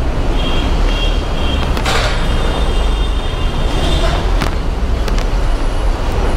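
Steady road and traffic noise with heavy low rumble, like wind buffeting a rider's microphone on a moving motorcycle. A few brief high tones and some clicks sound over it.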